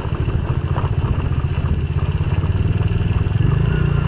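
Motor scooter riding along the road: a steady low engine and road noise that grows a little louder about three and a half seconds in.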